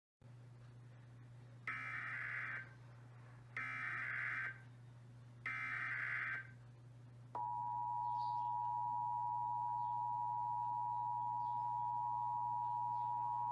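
Emergency Alert System broadcast: three short bursts of SAME header data tones, each about a second long, then the EAS two-tone attention signal (853 and 960 Hz together), which starts about seven seconds in and holds steady. A steady low hum runs underneath.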